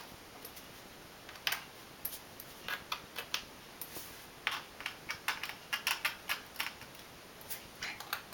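5/64 jeweler's screwdriver clicking and ticking against the tiny bottom-cover screws of a MacBook Pro as they are tightened one after another: irregular sharp clicks, some in quick clusters.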